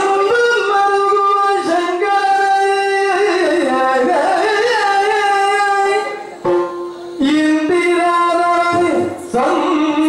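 Yakshagana bhagavata singing a slow melodic line in long held notes that glide between pitches, over a steady drone, with short breaks about six and a half and nine seconds in.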